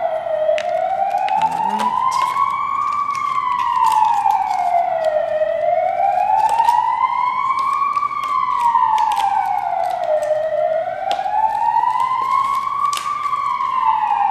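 Ambulance siren wailing. Its pitch climbs slowly for about three seconds and falls for about two, over and over, loud throughout.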